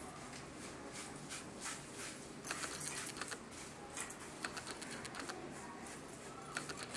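Light, irregular clicks and clinks of glass beads and needles against small steel bowls and plates as beads are strung by hand.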